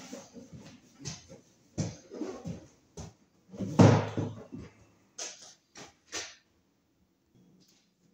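A run of irregular knocks and clunks, like tools or materials being handled. The loudest is about four seconds in, a longer clatter lasting about a second, and the last two seconds are quiet.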